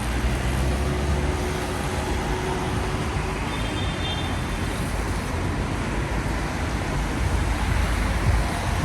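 Road traffic on rain-wet city streets: a steady low engine rumble under a continuous hiss of tyres and rain.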